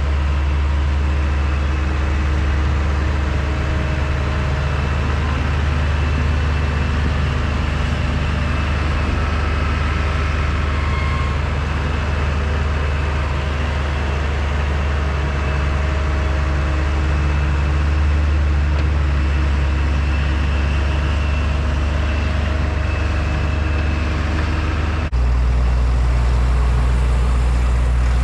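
Heavy farm machinery engine running steadily with a deep, continuous hum. About 25 seconds in, the sound switches abruptly to a different steady engine hum.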